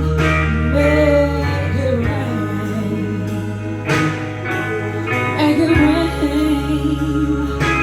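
Blues-style song with guitar over sustained low bass notes, changing chord every couple of seconds, with some singing.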